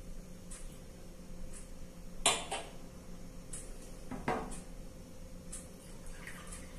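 A stemmed wine glass set down on a glass tabletop with a sharp clink, then a second clink about two seconds later. Near the end, water begins to pour from a glass pitcher into the glass, while a faint tick sounds about once a second.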